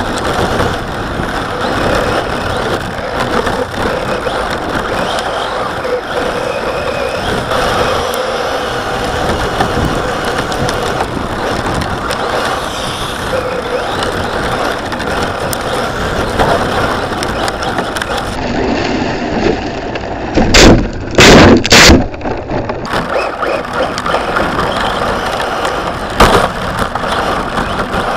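Onboard sound of a radio-controlled car driving on packed snow: its motor and drivetrain running with tyre and chassis noise. A cluster of very loud knocks comes about twenty seconds in, and another a few seconds later.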